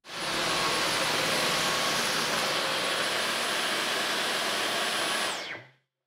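Dyson V15 Detect cordless stick vacuum's motor running with a steady rushing airflow and a high whine, then switched off a little after five seconds in, its whine falling as the motor spins down.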